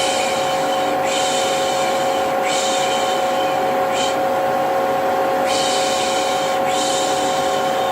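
Vacuum cleaner motor running steadily with a constant whine, overlaid by a person shushing 'shhh' over and over, mostly in long strokes of about a second each with one short one in the middle. This is the soothing shush used to calm a baby.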